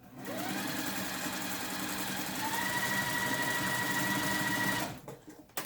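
Electric sewing machine stitching a seam, its motor whine rising as it starts and stepping up in pitch about halfway, then stopping about five seconds in. A few sharp clicks follow at the very end.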